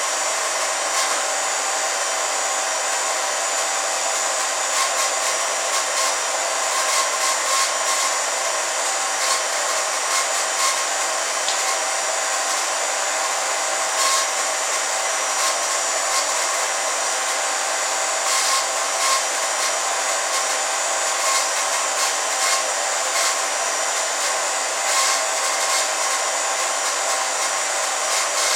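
Steady mechanical whir at an even level, with a few steady tones and faint irregular clicks.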